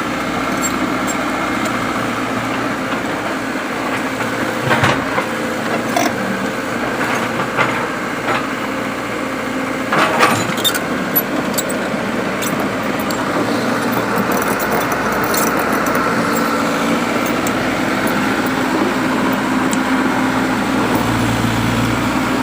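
Komatsu excavator's diesel engine running steadily, with a few sharp clanks about five, six and ten seconds in.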